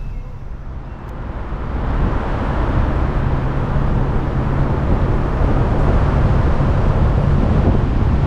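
A boat's motor running steadily with a low hum under the rush of wind and water. It grows louder about a second in, then holds steady.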